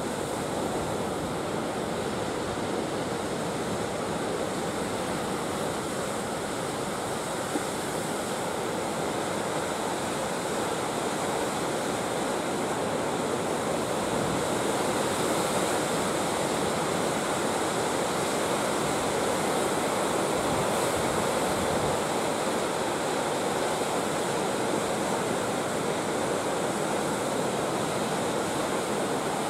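Sea surf breaking, a continuous rushing wash of waves that grows a little louder about halfway through.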